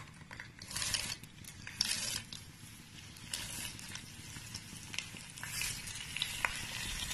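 Washed, drained jeerakasala rice sizzling softly in hot ghee and oil in a pot, with a few short louder hisses and light clicks.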